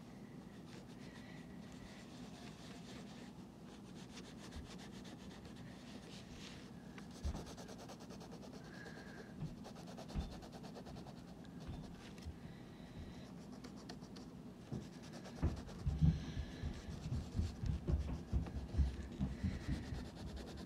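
Wax crayon rubbed back and forth on paper in quick scratchy strokes, colouring in a drawing. In the last few seconds the strokes get heavier, with a run of dull knocks.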